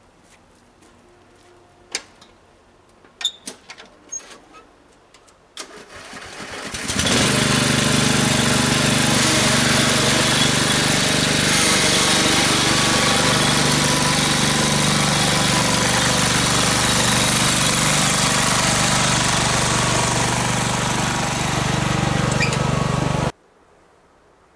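A few knocks, then the 14-horsepower engine of an MTD 1442 lawn tractor cranks and starts about six seconds in. It runs loud and steady while the tractor pulls away with two firewood-loaded trailers, and the sound cuts off suddenly near the end.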